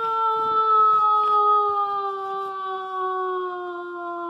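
A woman's voice drawing out one long 'caaaan't' on a single held vowel, its pitch sliding slowly down.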